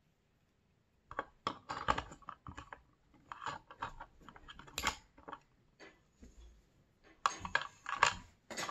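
Light plastic clicks and taps of a small toy figure and its parts being fitted into a small plastic display case, starting about a second in and growing busier near the end.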